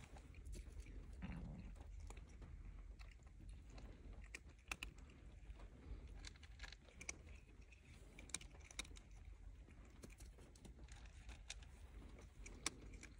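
Near silence with faint, scattered small clicks and rustles, a few sharper ticks standing out.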